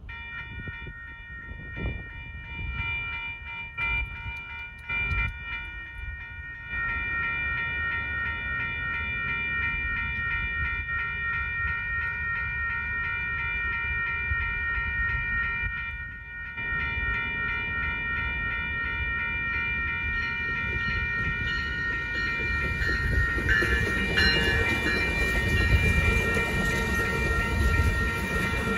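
Railroad crossing warning bell starts ringing as the crossing signals activate and keeps ringing steadily. In the last several seconds the rumble of an approaching Amtrak San Joaquins passenger train builds up under it as the train, led by its cab car, reaches the crossing.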